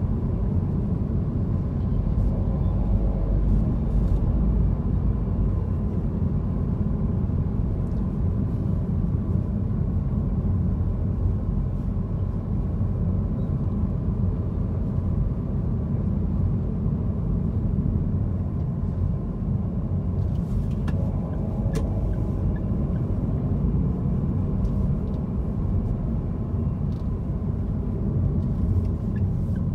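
Car driving in city traffic, a steady low rumble of engine and road noise heard from inside the cabin, with a few faint clicks about two-thirds of the way through.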